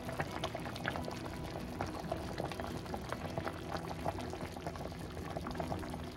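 Pot of pork sinigang soup boiling, with many small bubbles popping irregularly over a steady simmer.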